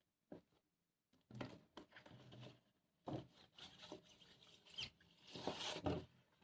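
Vinyl record packaging being handled: three spells of rubbing and sliding of cardboard jackets and paper or plastic sleeves, with small clicks and taps.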